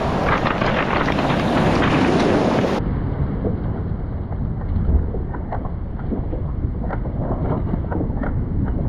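Wind noise on the microphone over surf washing onto a cobble beach, with scattered sharp clicks of rounded beach stones knocking together. A little under a third of the way in, the surf's hiss drops away abruptly; the low wind rumble and the stone clicks go on.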